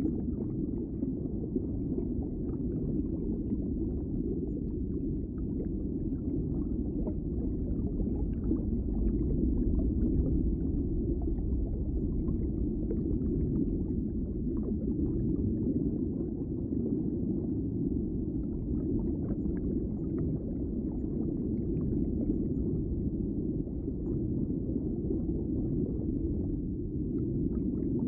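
Underwater aquarium ambience: a steady, muffled low rumble of moving water, with faint small bubbling ticks scattered through it.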